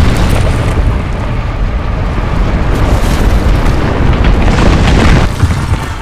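Loud, deep rumbling crash of a giant snowball rolling and smashing into a wall, with a couple of heavier booming surges before it fades away near the end. This is a film sound effect.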